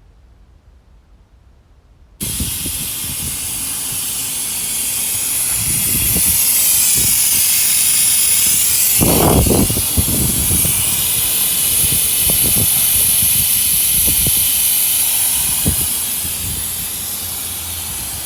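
Vacuum oil-extractor machine hissing loudly as it draws engine oil out of an outboard motor, starting suddenly about two seconds in. Irregular low crackles run under the hiss, with a stronger rush about halfway.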